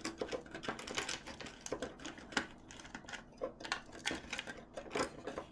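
Irregular light clicks and taps of a screwdriver and small plastic parts being worked while a tight screw is taken out of an RC car's plastic chassis.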